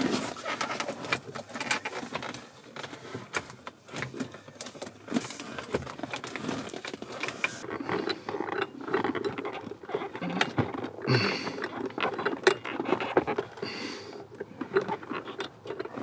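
Irregular clicking, rattling and rustling of a Mercedes 300D's replacement ignition lock being pushed and worked into its sleeve in the steering column by gloved hands, while trying to get its retaining pin to snap into place.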